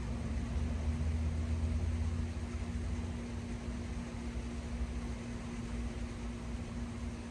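A steady mechanical hum with one constant low tone, over a low rumble that eases off about three seconds in.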